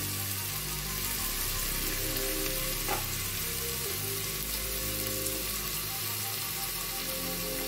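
Diced potato, capsicum and tomato sizzling steadily in hot groundnut oil in a pressure cooker over a low flame.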